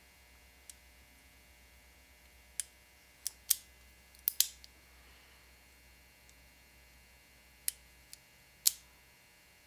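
Sharp metallic clicks from the exposed lockwork of a Rossi Model 69 .32 Long revolver as the hammer is cocked and the hand turns the cylinder. There are about ten clicks at uneven intervals, some in quick pairs, with quiet between them.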